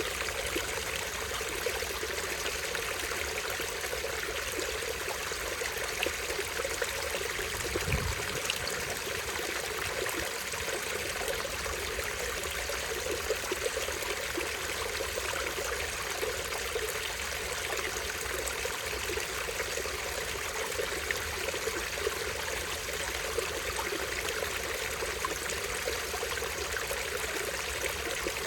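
Small stream running steadily and trickling over a tiny waterfall, with one brief low thump about eight seconds in.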